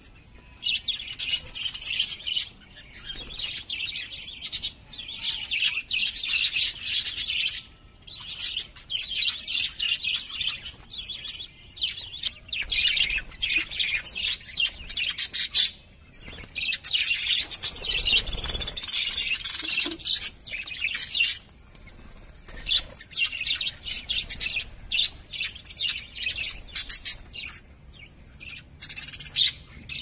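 A flock of budgerigars chattering: many overlapping high-pitched chirps and warbles in busy bursts, with a few brief lulls.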